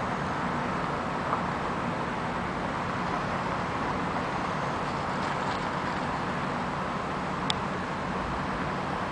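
Steady outdoor vehicle and traffic noise with a low, even hum. A single sharp click comes about seven and a half seconds in.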